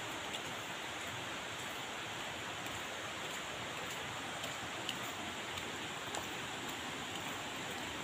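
Steady rush of flowing river water, an even hiss with a few faint ticks over it.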